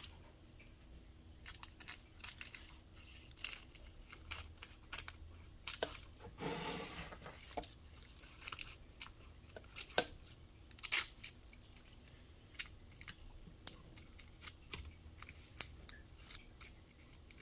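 Scissors snipping paper, a string of short irregular cuts made while trimming the paper around the rim of a round cheese mould, a few of them louder than the rest.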